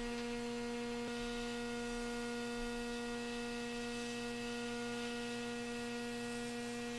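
Hot air rework station blowing steadily onto an iPhone logic board's metal shield to melt its solder, a faint airy hiss under a steady electrical hum.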